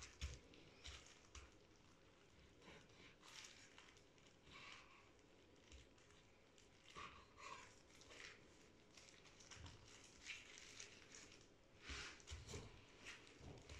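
Faint, soft rustles and light pats of thin raw beef slices being laid out and pressed flat by gloved hands on a wooden cutting board, with a few light taps.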